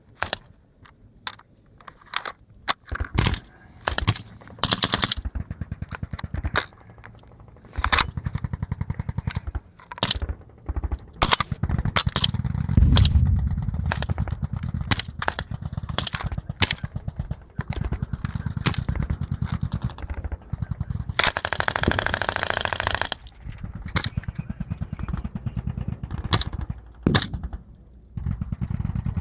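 Small-arms gunfire: scattered single rifle shots, then long, sustained automatic bursts through the middle, including a dense rush of rapid fire lasting about two seconds, before it breaks back into separate shots near the end.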